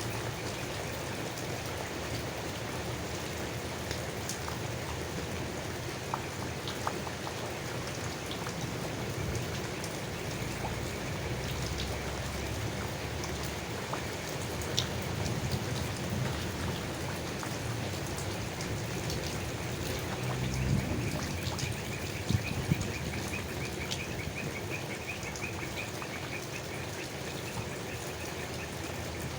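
Steady rain pattering onto leaves, with scattered louder single drips. Near the end a faint, fast, repeated chirping sits under the rain.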